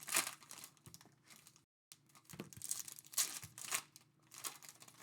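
Panini NBA Hoops trading card pack wrappers crinkling and being torn open, in several short rustling bursts.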